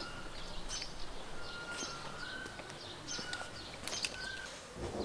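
Small songbirds chirping in quick, high notes, with a few short, thin whistled notes in between.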